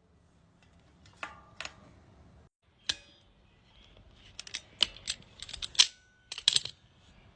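Brake pads and small metal parts being handled on an e-bike's disc brake caliper: a run of sharp light clicks and clinks, some with a brief metallic ring, bunched into quick clusters in the second half.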